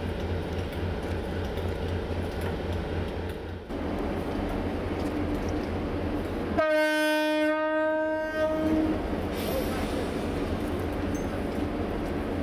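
Diesel locomotive idling with a low, steady rumble. About two-thirds of the way in, a train horn sounds one long note of about two seconds, the loudest sound here.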